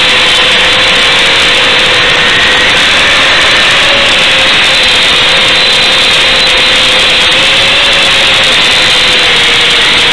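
Motors of a 5-inch FPV quadcopter whining at a steady pitch that wavers slightly with throttle. The whine is buried in loud, even hiss, as it comes over the analog video link to the goggles' DVR.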